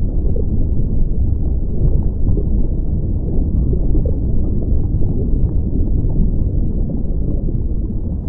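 Deep, muffled rumbling sound effect, steady and loud, with nothing in the upper range.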